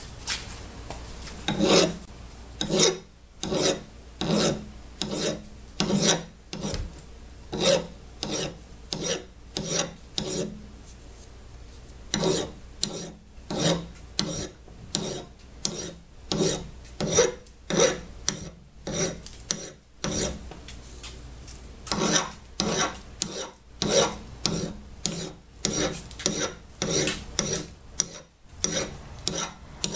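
Hand metal file rasping back and forth across a rusty steel hatchet head in regular strokes, about one and a half a second, with a brief let-up near the middle. The file is taking off metal to smooth the head's pounded-out sides.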